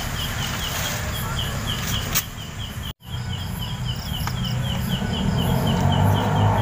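An insect chirping in a steady rhythm of about four short, high chirps a second, over a low hum that grows stronger near the end. A single click comes about two seconds in, and the sound cuts out completely for a moment just before three seconds.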